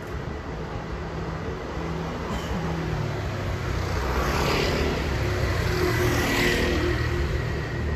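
A motor vehicle passing on a street, its engine hum and tyre noise growing louder and peaking about two-thirds of the way through.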